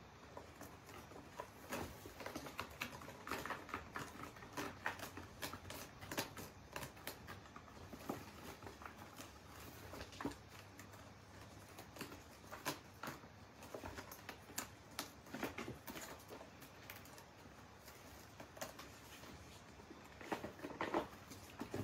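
Kittens' claws and paws scrabbling on a cat scratcher ramp and carpet as they wrestle. It is an irregular run of quick soft clicks, taps and scratches, with a louder flurry near the end.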